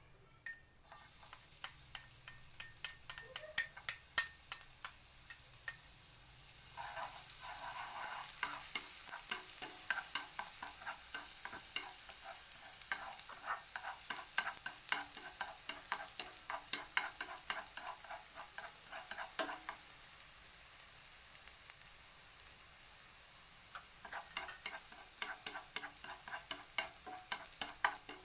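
Onion and garlic frying in hot oil in a pan: a steady sizzle full of small crackles and spits, which grows louder about seven seconds in and eases somewhat later on.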